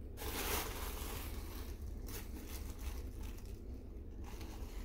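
Rustling and squishing of a latex mask being turned over on a hand, in three short bursts, over a low steady rumble.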